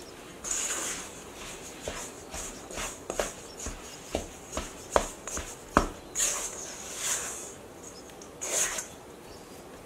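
Silicone spatula cutting through and folding stiff cake-doughnut dough in a stainless steel bowl: soft scraping swishes of dough and spatula against the bowl, with a run of short sharp knocks in the middle few seconds.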